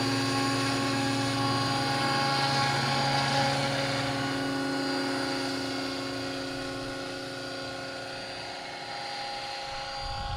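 Scale RC helicopter lifting off and flying away: a steady rotor drone with a high whine, fading gradually as it moves off.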